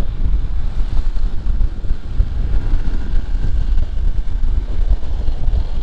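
Wind buffeting the microphone on a moving motorbike: a loud, uneven low rumble.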